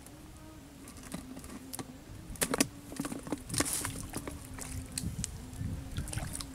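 Close handling noises of a plastic bucket and its lid as a caught eel is put away: scattered clicks and knocks, loudest in a cluster with a short rustle about two and a half to four seconds in, over a steady low hum.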